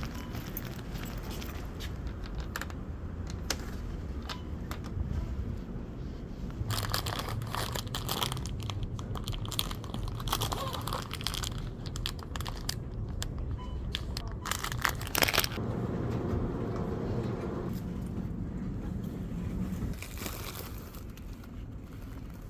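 Crinkling and rustling of something being handled, with scattered clicks, loudest in two stretches about a third and two thirds of the way through, over a low steady hum.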